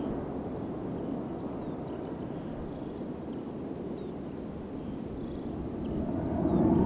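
Twin-engine jet fighter flying a display overhead, its engines a steady distant jet rumble that swells louder near the end.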